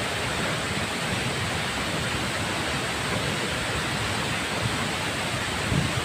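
A large waterfall's steady, even rush of falling water.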